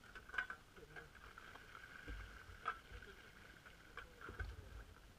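Faint scraping of shovels and an ice scoop working at ice, with a few sharp knocks of metal blades striking it.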